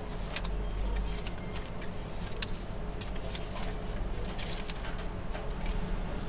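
Paper banknotes being counted by hand: short, crisp flicks and rustles as Japanese 1000-yen notes are peeled off the stack one by one, over a steady low hum.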